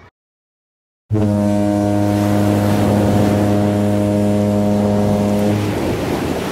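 After a second of silence, a ship's horn sounds one long, steady, deep blast that stops near the end, giving way to a hiss of wind and sea.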